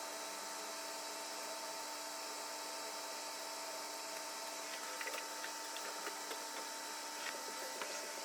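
Steady hum and hiss, with a run of small, light clicks and taps starting about halfway through, like small parts being handled on a workbench.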